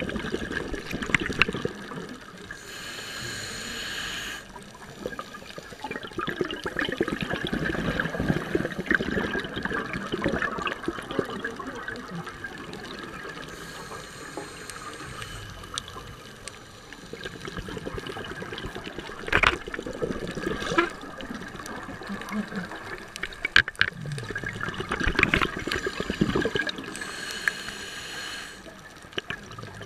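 Underwater sound of scuba diving: regulator breathing and exhaled bubbles gurgling in bursts every few seconds, with a few sharp clicks.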